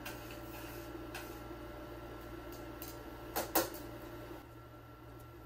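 Pot of water with soba noodles at a rolling boil, bubbling steadily, while metal tongs stir in a stainless steel pot; the tongs knock twice against the pot about three and a half seconds in.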